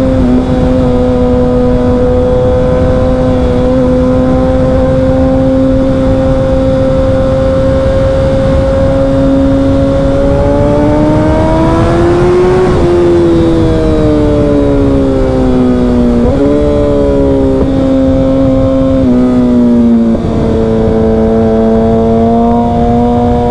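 Suzuki Hayabusa inline-four running through a Brock's Alien Head 2 exhaust at steady cruise, with its induction howl. About halfway through, the engine note climbs as the throttle opens, then falls away, with a few sudden pitch steps near the end like gear changes.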